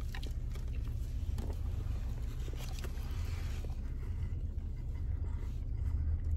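Steady low rumble of a car idling, heard from inside the cabin, with faint chewing of a bite of crispy fried chicken sandwich.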